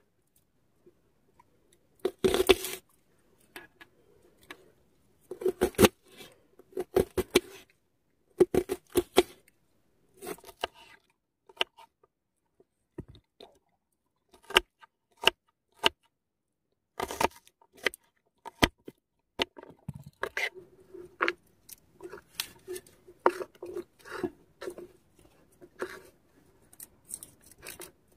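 A small knife slicing and chopping a red onion on a wooden cutting board: irregular sharp taps of the blade against the board, in short clusters with pauses between them.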